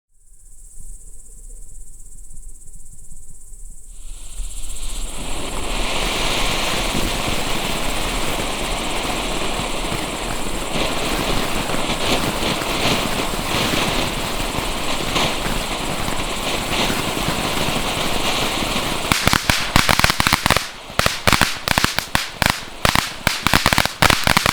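Firework fountain (Spring Flower) burning. A thin high hiss for about four seconds gives way to a steady, loud spraying hiss, and about nineteen seconds in it turns to a dense crackling of many rapid small cracks.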